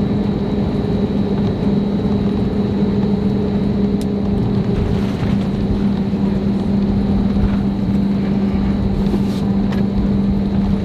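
Steady cabin hum of an Airbus A321neo on the ground after landing, with a constant low drone and fainter steady tones above it.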